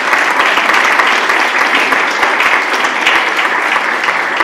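Audience applauding: a steady, loud mass of handclaps from many people.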